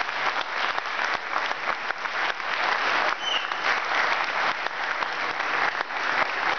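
Audience applauding steadily: a dense, continuous clapping from many hands.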